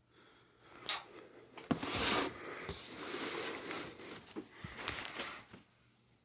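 Cardboard box being handled and turned over: a knock about a second in, a loud scraping rustle around two seconds in, then softer rubbing and small taps that stop shortly before the end.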